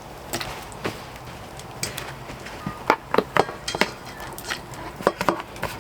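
Irregular clinks and knocks of cooking pots and utensils being handled while food is prepared, some with a short metallic ring, growing busier about halfway through.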